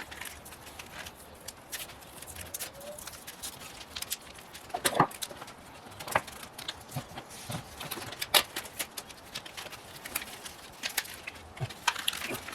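Plastic retail packaging of a memory card being pried and torn open by hand: irregular clicks and crackles, with louder snaps about five seconds in and again about eight seconds in.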